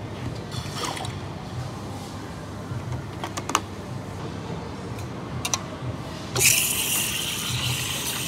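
Milk poured into stainless steel milk pitchers with a few sharp metal clinks of the jugs, then about six seconds in an espresso machine's steam wand starts hissing loudly and keeps going.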